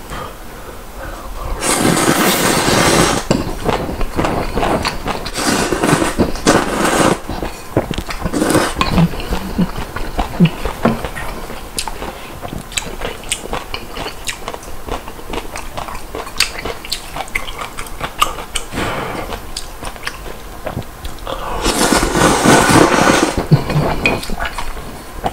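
A person slurping spicy ramen noodles loudly, in a long slurp about two seconds in and another near the end, with chewing and the clicks of chopsticks against a bowl in between.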